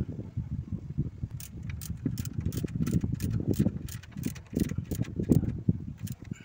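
Ratchet wrench clicking, about three to four quick clicks a second, as it turns a nut on a transmission support rubber mount. Under it, a gusty low rumble of wind on the microphone.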